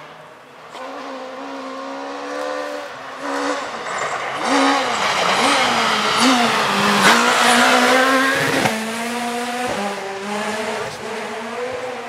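Rally car at full speed on a gravel stage: the engine note climbs as it approaches, dips and rises through quick gear changes and lifts for the bend, and is loudest as the car passes about seven seconds in, with a few sharp pops, then fades as it drives away.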